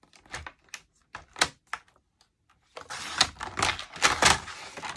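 Paper trimmer cutting cardstock: a few sharp clicks and taps as the sheet is set against the guide, then about two seconds of continuous scraping with several stronger strokes as the blade is run along the track.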